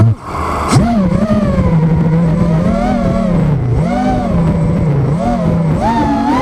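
Wizard X220 FPV racing quadcopter's brushless motors and propellers lifting off from grass with a brief rushing burst, then whining as it flies, the pitch rising and falling with the throttle.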